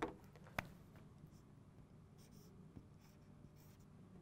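Felt-tip marker drawing on a whiteboard: faint short strokes in the second half, after two sharp clicks about half a second apart at the start.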